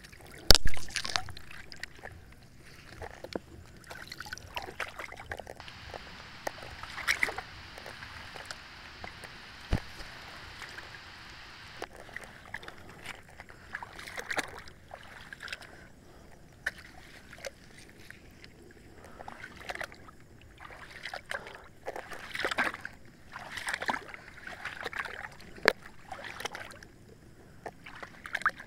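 Water sloshing and splashing as a person moves through river water, with scattered knocks and clicks. A sharp knock about half a second in is the loudest sound.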